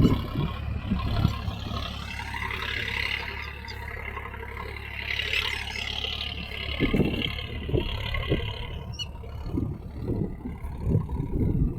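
Sonalika tractor's diesel engine running steadily while pulling a reversible plough, with a whine that rises and falls in the middle. Irregular low buffeting comes in at the start and again from about seven seconds in.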